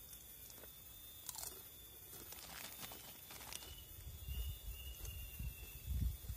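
Faint outdoor ambience: steady high-pitched tones throughout, a few light knocks in the first half, and a low rumble that builds near the end.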